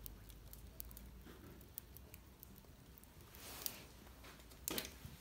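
Firewood burning under a large pot on an open hearth, crackling with scattered sharp pops, and a louder rustling burst near the end.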